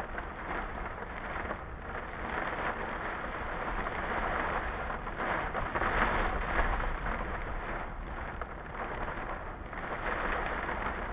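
Heavy rain pelting the roof and windshield of a parked car, heard from inside the cabin: a steady downpour with scattered sharper hits, growing heavier about halfway through.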